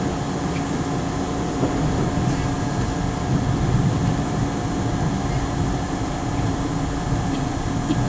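New York City subway C train running along a station platform as it pulls in: a steady rumble of wheels on the rails with a steady hum.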